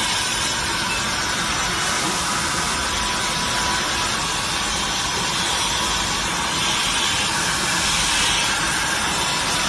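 Automatic in-line PCB depaneling router running: a steady machine hiss and whir with a faint steady tone, swelling slightly about two-thirds of the way through.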